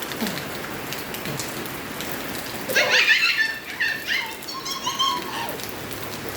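Steady rain falling and pattering on surfaces, with a few brief high-pitched cries from about three seconds in.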